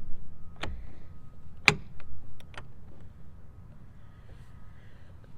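A few sharp metallic clicks and knocks from a barrel bolt and shed door being worked, two louder ones about a second apart and a couple of faint ticks after.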